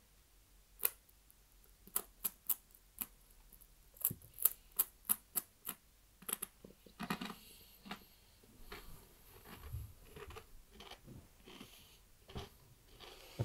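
Crunching of a crisp stick snack being bitten and chewed: a series of short, sharp crackles, quickest a few seconds in, then softer and more scattered chewing.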